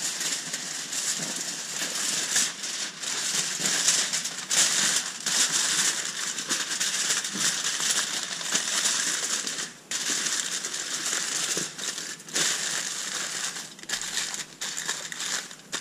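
Aluminium foil crinkling and crackling as hands fold and crimp it around a foil-wrapped fish head on a metal sheet pan. Dense, continuous crackle with one brief pause near the middle.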